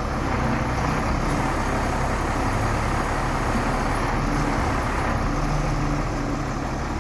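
International DT466E diesel engine idling steadily, a low even hum.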